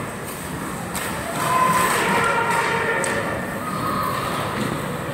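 Ice hockey rink during play: skates and sticks scraping on the ice, sharp knocks of stick, puck or boards about a second in and again about three seconds in, and voices shouting from about a second and a half in.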